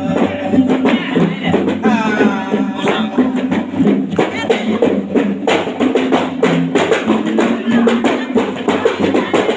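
Kei-style gambus music for the Samra dance: a plucked gambus lute over a steady, busy drum beat.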